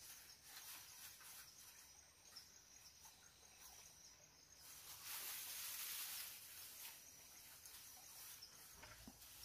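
Near silence: faint forest ambience with a steady high insect drone, and soft rustling of grass leaves being handled, a little louder about five seconds in.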